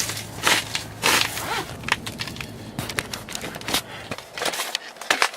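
Frozen snow and ice crunching in irregular sharp clicks, over a low steady hum that stops about four and a half seconds in.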